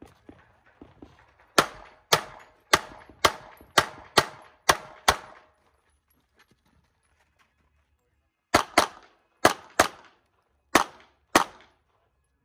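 Gunshots from a competitor's gun on a shooting stage. A string of eight shots about half a second apart starts about a second and a half in; after a pause of about three seconds, six more shots follow near the end, several in quick pairs.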